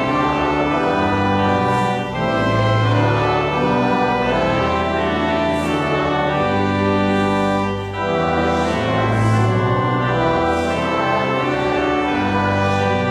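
Church organ playing slow, held chords, with short breaks between phrases about two and eight seconds in.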